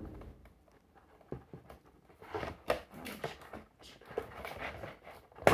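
Hands working inside a cardboard toy box to free a tangled action figure from its packaging: irregular rustling, scraping and small knocks, with a sharper knock near the end.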